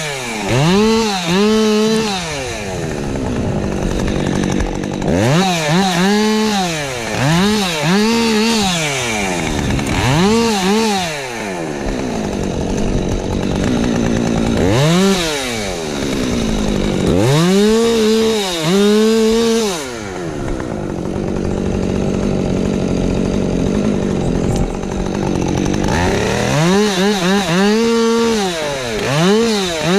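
Husqvarna 550XP Mark II two-stroke chainsaw revving again and again in short bursts, its pitch climbing to near full speed and dropping back each time, with a few longer stretches of steady running through wood.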